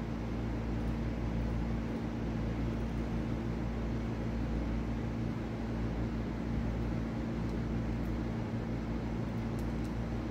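Steady low machine hum over an even hiss, unchanging throughout, with a few faint clicks near the end.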